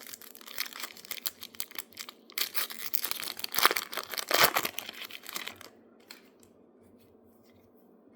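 Wrapper of a Topps baseball card pack being torn open and crinkled: a run of crackles and rips lasting about five and a half seconds, loudest about four seconds in.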